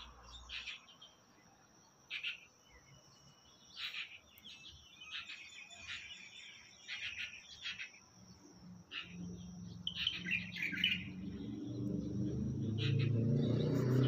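A flock of small songbirds calling in short, scattered chirps, over a faint steady high whine. A low rumble grows louder over the last few seconds.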